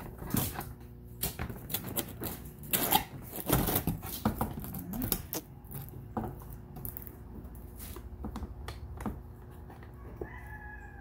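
Molded plastic prop panels knocking and clicking as they are slid and fitted together. There is an irregular clatter of small knocks that is densest in the first half and thins out later.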